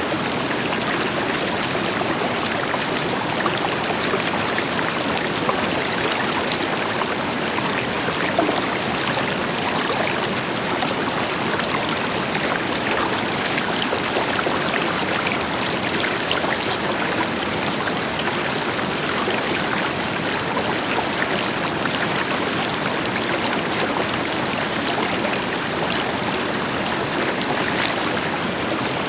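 River water flowing steadily over rocks, with a distant waterfall adding a deeper rushing hiss and small splashes and trickles through it.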